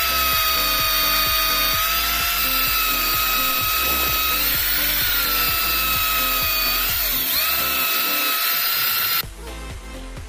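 Xtra Power XPT 435 hammer drill running with a high whine as a flat spade bit bores into a block of wood, the pitch shifting a few times as the bit bites. The motor cuts off about nine seconds in.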